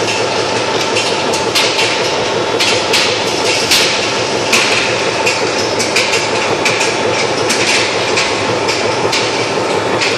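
A skew rolling line for steel grinding balls running, with a steady mechanical noise and frequent irregular metallic clanks of balls striking steel, several a second, over pouring quench water.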